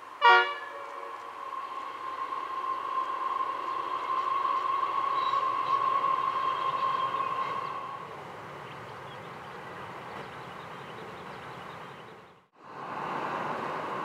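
Diesel freight locomotive horn gives one short, loud toot, then the container train runs past with a steady high whine over a rolling rumble. The sound drops suddenly about eight seconds in and cuts out briefly near the end before the wagons' rolling noise returns.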